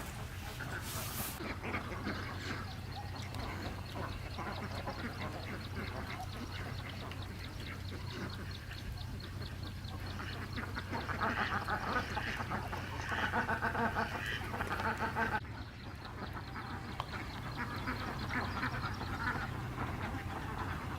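Animal calls, a rapid run of repeated calls that grows loudest in the middle, over a steady low hum.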